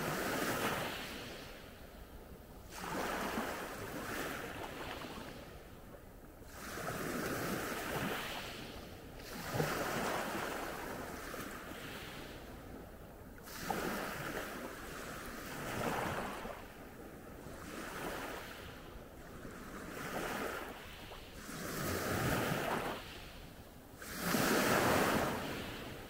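Small sea waves breaking on the shore. The surf swells and fades about every three seconds.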